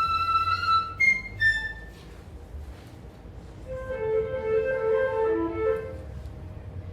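Flute trio of piccolo, flute and alto flute playing. A long high note ends about a second in, followed by two short higher notes. After a softer stretch, a wavering figure of lower notes with higher lines above comes in at about four seconds.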